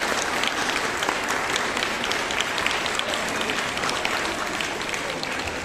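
Audience applauding, a dense patter of many hands clapping that eases off a little near the end.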